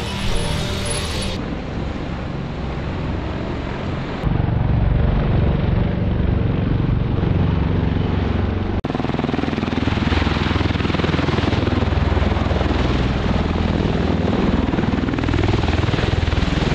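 Military helicopters flying, a steady rotor and engine noise heard across several cut-together shots, getting louder about four seconds in.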